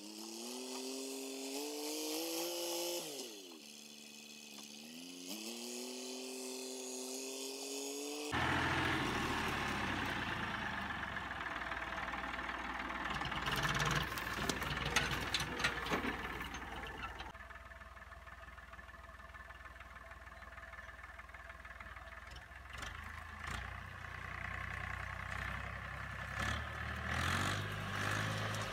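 Massey Ferguson 231S tractor's three-cylinder diesel engine running, its pitch rising, dropping and rising again in the first several seconds. The sound changes abruptly about eight seconds in. After that the engine works under load as the box blade pushes brush, with cracks and clatter of branches.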